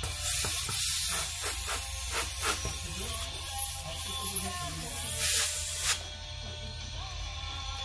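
Electric balloon inflator blowing air through a hand-held nozzle into a latex balloon: a loud rushing hiss in bursts that stops about six seconds in.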